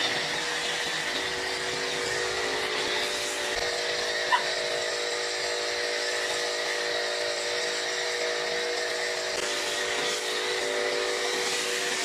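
Pressure washer running with a foam cannon spraying snow foam: a steady hiss of spray over the pump motor's steady hum. A single sharp click comes a little over four seconds in.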